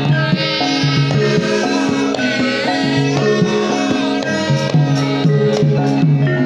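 Javanese gamelan music, with bronze metallophones and gongs playing a steady, rhythmic pattern of held, pitched notes.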